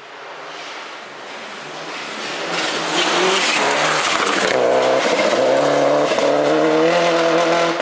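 Rally car at full speed on a loose gravel stage, its engine growing louder as it approaches, then passing close with a loud hiss of gravel sprayed from the tyres. The engine then holds a steady, high-revving note.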